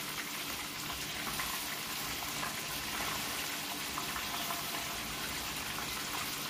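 Flour-coated chicken pieces deep-frying in a pot of hot oil: a steady sizzle.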